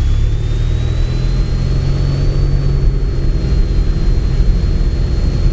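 Single-engine Piper's piston engine and propeller going to full takeoff power at the start of the takeoff roll, heard from inside the cabin. A thin high whine rises and then holds steady about two seconds in.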